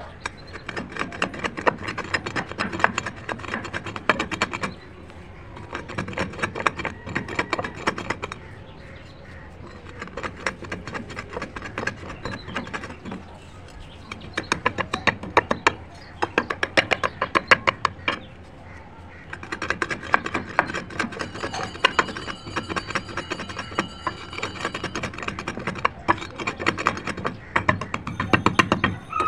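Broken slate pencil pieces being crushed and ground by hand, giving rapid crackling crunches. They come in bouts of a few seconds with short pauses between.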